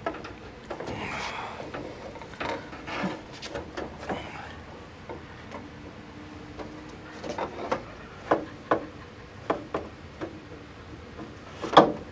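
A wooden interior panel knocked and rubbed against a VW bus's cargo door as it is test-fitted: scattered taps and scrapes, with one sharp knock near the end.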